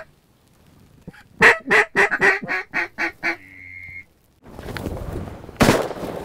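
Mallard duck call blown in a descending string of about eight quacks, ending in a short steady high note. After a brief break, a single loud shotgun blast sounds near the end.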